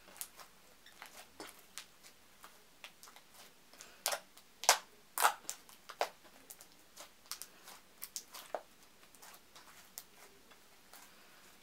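Pink-tinted clear slime being squeezed and worked in the hands, giving scattered, irregular small clicks and pops, with a few louder pops about four to five seconds in.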